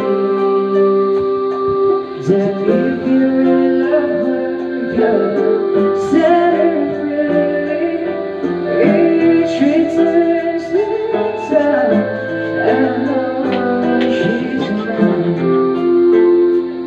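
Pop ballad music with guitar and sustained chords, with a singing voice carrying the melody over it.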